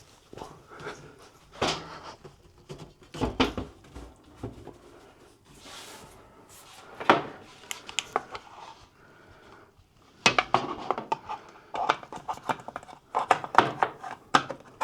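Scattered knocks, clicks and rattles of hard objects being handled and set down, coming in short clusters with denser runs in the last few seconds. The handling fits a 3D printer being moved onto a shelf.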